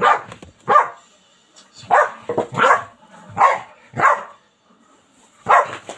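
A dog barking repeatedly: about nine short, loud barks in irregular bunches, with a pause of about a second a little past halfway.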